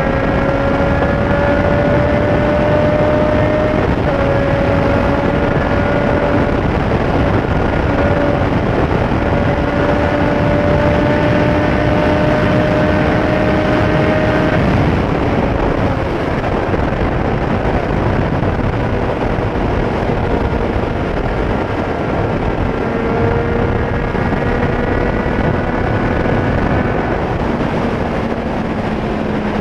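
Motorcycle engine running at riding speed under heavy wind rush on the rider's microphone; the engine note climbs slowly and steps down in pitch a couple of times.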